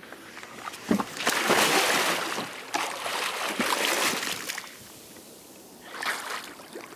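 Kayak paddle strokes splashing and sloshing water, a long spell of splashing about a second in and a shorter one near the end.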